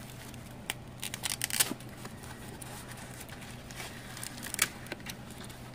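Paper being handled and unfolded, with short crinkles and rustles in a cluster about a second in and again near the end.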